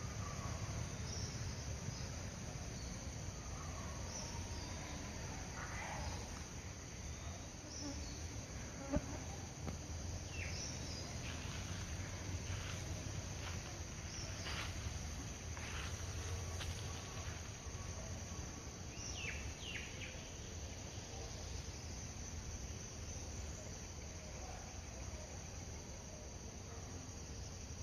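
Outdoor ambience of insects chirping, with scattered short high chirps over a steady low rumble and one sharp tick about nine seconds in.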